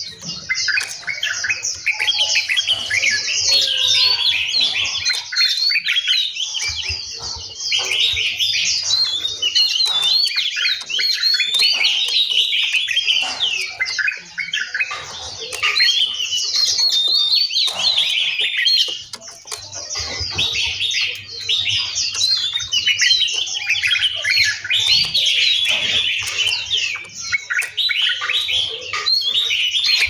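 Several songbirds chirping and singing at once: a dense chorus of quick, overlapping chirps and whistles, with a couple of brief lulls.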